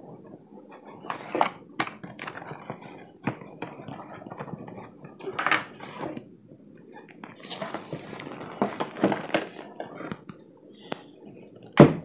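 Cardboard packaging rustling, scraping and knocking as a boxed Bluetooth speaker is unpacked by hand, in short irregular bursts, with one loud knock near the end.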